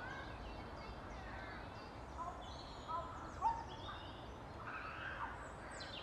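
Mallard ducks calling in short, pitched calls, the loudest about three and a half seconds in. Small songbirds chirp through it.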